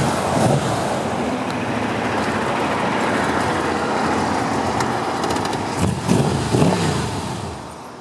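Carbureted small-block Chevy 350 V8 in a Porsche 914 running as the car rolls up and idles, revved in a few quick blips about six to seven seconds in, then switched off near the end.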